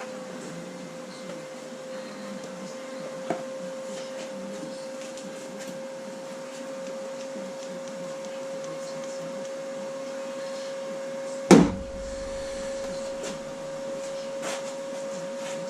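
A steady machine hum on one pitch, with a single sharp knock about eleven and a half seconds in.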